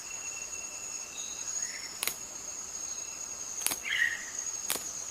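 Forest ambience: a steady, high-pitched insect drone like crickets, with a few short chirps about a second and a half in and again near four seconds. Three sharp clicks are heard in the second half.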